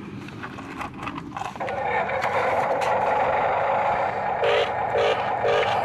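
Radio-controlled scale excavator working, with clicks and scraping at first. About a second and a half in, its small electric drive motors start a steady whine. Near the end a short beep repeats about twice a second.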